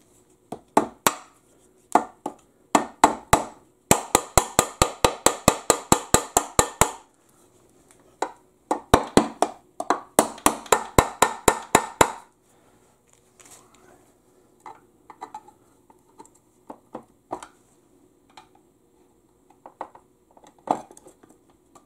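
Small hammer tapping on a pry bar wedged in the seam between a Toyota U140 transaxle's aluminium case and its rear cover, to break the sealed cover loose. A few single taps, then two fast runs of about six taps a second, each about three seconds long, followed by lighter scattered clicks of the tools being shifted.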